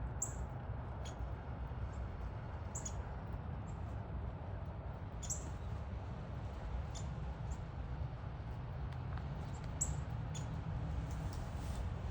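Small birds giving short, very high chip calls, a dozen or so spaced irregularly, over a steady low background rumble.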